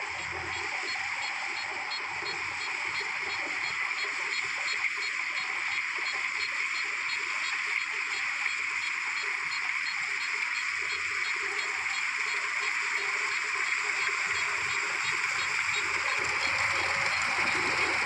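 Kubota DC105X combine harvester running while it harvests rice: a steady high whir and hiss with a few thin whining tones, growing gradually louder as the machine comes closer.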